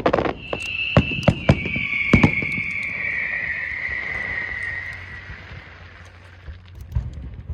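Aerial fireworks: several sharp bangs of shells bursting in the first couple of seconds, over a long hissing whistle that slowly falls in pitch and fades out after about five seconds. A few more bangs come near the end.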